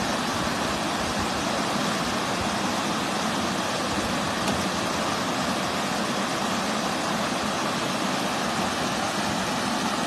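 Water rushing down a concrete spillway into a shallow channel, a steady, even rush of white water.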